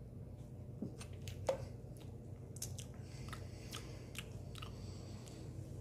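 Swallowing sparkling water from a plastic bottle, then a run of small lip smacks and tongue clicks as the drink is tasted, with a soft hiss partway through.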